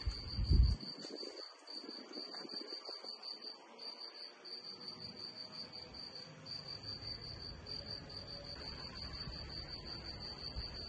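Crickets chirping: a steady high-pitched trill of rapid pulses, picked up by a phone's microphone. A brief low rumble sounds in the first second.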